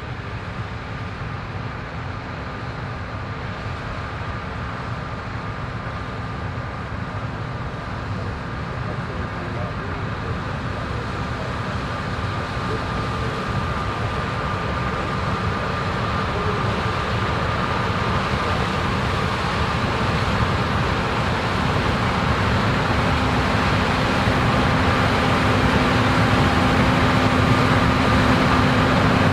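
Combine harvester running while harvesting corn: a steady engine drone with a high whine, growing steadily louder.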